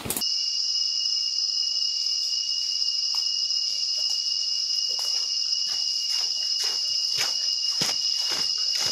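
Forest insects droning steadily in a high, even pitch, with a fainter second tone beneath. From about five seconds in, footsteps crunch on dry leaf litter and come closer.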